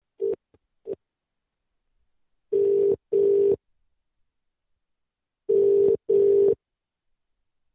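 British telephone ringback tone heard down the phone line: the double ring, two short buzzes in quick succession, comes twice, about three seconds apart, after two brief blips near the start. The called number is ringing and has not yet been answered.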